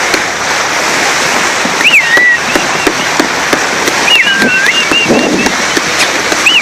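Steady loud rush of water and spray alongside a moving boat. A few high, thin whistles glide up and down over it: one about two seconds in, a longer dipping one after about four seconds, and another at the end.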